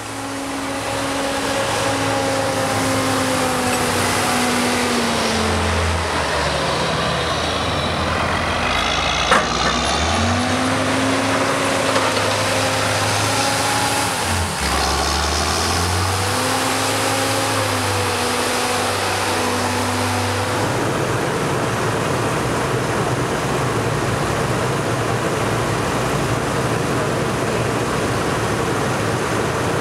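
John Deere 7710 tractors' six-cylinder diesel engines working under load while packing a maize silage clamp, their pitch rising and falling as they climb and come back down the heap, with a sharp click about nine seconds in. About two-thirds of the way through, the sound changes abruptly to a steadier tractor engine drone with a hiss.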